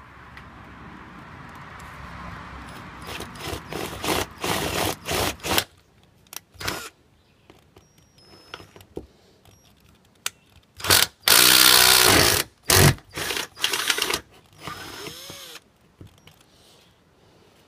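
Cordless drill boring through the van's sheet-metal roof in stop-start bursts, the bit grinding into the metal under light pressure while a pilot hole is enlarged; the longest, loudest burst comes a little past halfway, and the motor winds down near the end.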